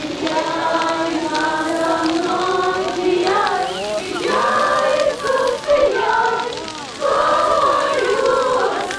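A group of people singing a song together, many voices in unison, with held notes that change pitch about every second.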